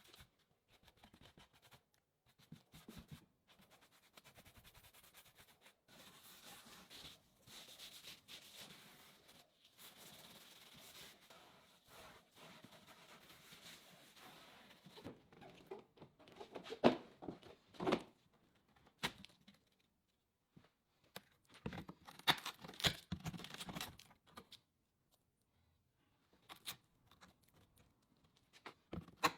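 Tearing and crinkling work sounds, with a long stretch of rough rasping in the middle and a few sharp knocks later on.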